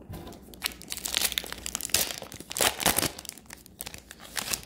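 Foil wrapper of an Upper Deck hockey card pack crinkling and crackling as it is handled and torn open, a dense run of sharp crinkles that is loudest between about one and three seconds in.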